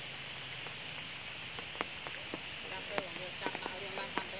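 Steady rain hiss with scattered sharp drop taps that come more often in the second half.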